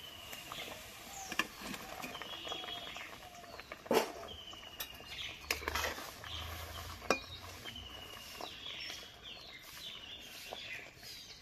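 Metal spatula stirring in a metal karahi, scraping and knocking against the pan with sharp clinks about four and seven seconds in. Small birds chirp over and over in the background.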